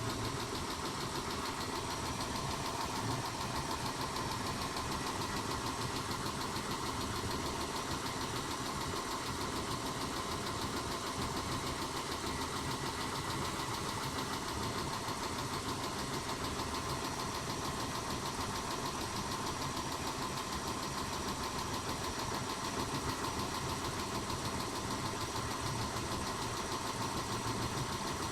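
Mitsubishi 6G72 V6 engine idling steadily with a fast, even ticking from the valvetrain, which the owner puts down to noisy hydraulic lifters.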